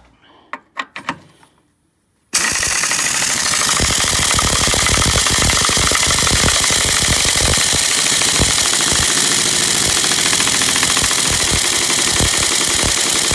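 A few light clicks, then about two seconds in a pneumatic impact wrench starts a loud, continuous rapid hammering, running down the top nut on the stud of a semi truck's suspension air spring.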